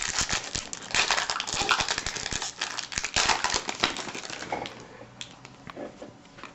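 Crinkling and rustling of a baseball card pack's wrapper and cards being handled. It is dense for about four seconds, then thins to a few scattered ticks.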